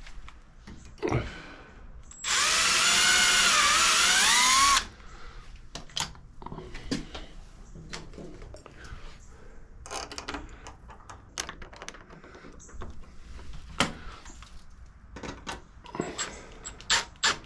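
A power drill runs for about two and a half seconds, its motor whine dipping and then rising in pitch as it drives a screw into the wood. Scattered light clicks and knocks of hardware being handled follow.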